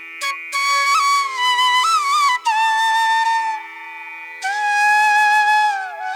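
Background music: a flute playing a slow melody of held notes with slides and bends over a steady drone, the line gliding downward near the end.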